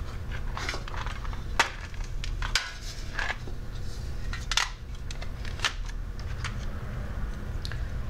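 Small objects and plastic letters rattling and clicking against each other and a metal tin as hands rummage through it and lift pieces out, in scattered irregular clicks over a steady low hum.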